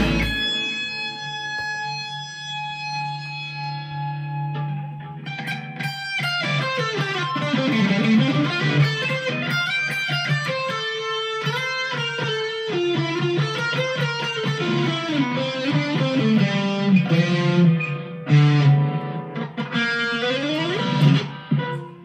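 PRS 245 electric guitar played with high-gain distortion: a held chord rings out for the first few seconds, then fast lead lines follow, with quick picked runs and string bends.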